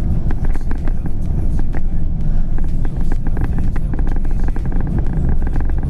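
A car driving, heard from inside the cabin: a steady low road and engine rumble with frequent small clicks and rattles.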